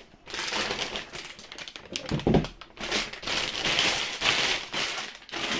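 Clear plastic bag crinkling and rustling as a car radio head unit is pulled out of it, with one thump about two seconds in.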